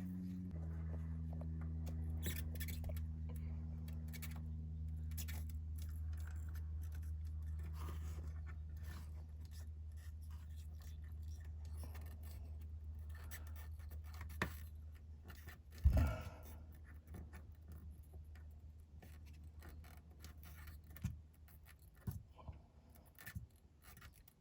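Scattered snips, clicks and scrapes of hand tools on small wiring and a light fixture, with a louder knock about two-thirds of the way through. A steady low hum runs underneath and fades out near the end.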